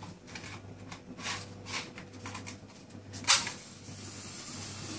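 Matches struck on a matchbox: a few short scrapes, then a sharp, louder strike a little over three seconds in as a bundle of three matches catches and flares.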